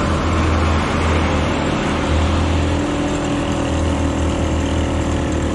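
Honda motorcycle engine running at a steady cruise, recorded from the rider's seat with wind rumbling on the microphone.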